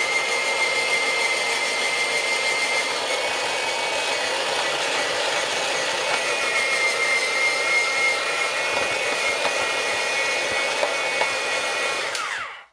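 Presto SaladShooter electric slicer/shredder motor running with a steady high whine while shredding carrots. It is switched off just before the end, and the whine falls away as the motor spins down.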